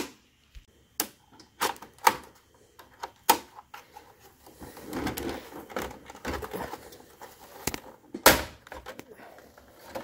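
Plastic back cover of a Lenovo ThinkCentre M820z all-in-one computer clicking and snapping as it is unlatched and pried open by hand, a series of sharp irregular clicks, the loudest about eight seconds in, with rustling handling noise between them.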